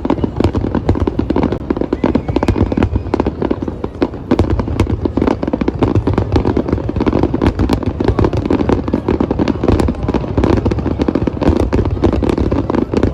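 Fireworks going off in a dense, continuous barrage of rapid crackling bangs, many pops a second.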